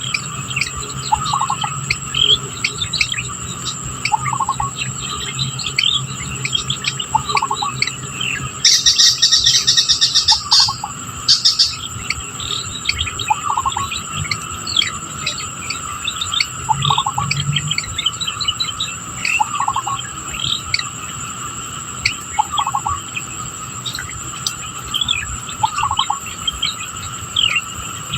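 Birds chirping and calling over a steady drone of insects: a short call repeats about every two to three seconds, and a loud, rapid trill lasts about two seconds roughly a third of the way in.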